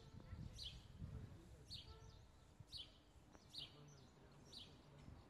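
A bird repeating a short, high, falling call about once a second, faint, over a low rumble of wind.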